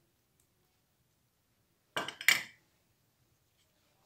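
A quick clatter of two or three knocks from a kitchen utensil against a steel pot, about two seconds in.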